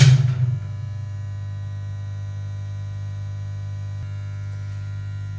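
Old 120-volt, 40-amp DC electric-vehicle charger switched on and charging: a loud surge for about the first half second, then a steady, loud mains hum with many overtones.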